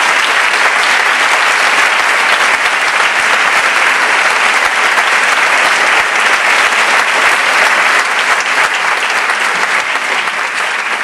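Audience applauding: a long, steady ovation of many hands clapping together, easing off slightly near the end.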